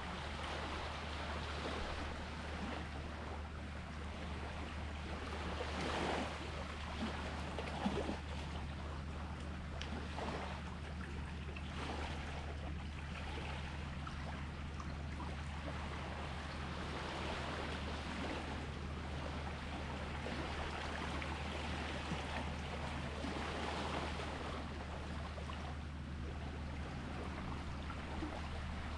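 Small sea waves washing and lapping, swelling and easing every few seconds, over a steady low hum.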